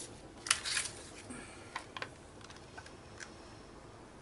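Small paper cut-outs being handled on a craft table: a short rustle with a few quick clicks about half a second in, then a few faint ticks.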